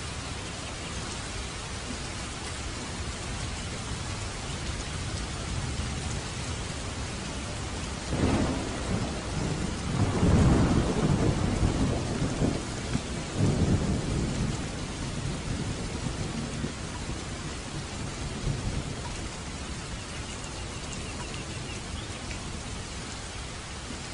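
Heavy rain falling steadily on a paved road and trees. A roll of thunder breaks in about a third of the way through, rumbles loudest for a few seconds, and dies away well before the end.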